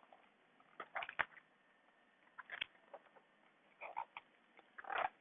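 Faint handling noise: brief soft rustles and taps in four or five small clusters.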